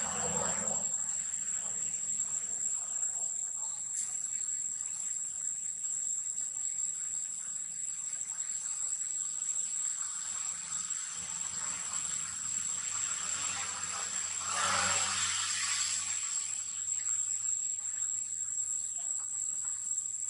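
Steady, high-pitched drone of insects, unbroken throughout. About fifteen seconds in, a louder noisy swell rises over it for a second or so.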